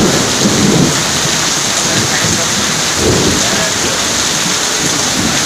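Heavy rain falling steadily, with water running off the edge of the shelter roof. Low rumbles come in at the start and again about three seconds in.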